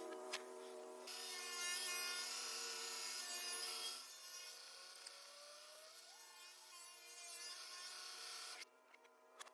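A woodworking power tool cutting and rasping wood over a steady motor whine, with the sound played backwards. The cutting noise is heaviest in the first few seconds and drops away abruptly near the end.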